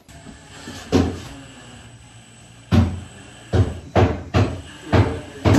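Seven sharp knocks on wooden cabinetry, each with a low thump. The first two are a couple of seconds apart and the last five come about every half second.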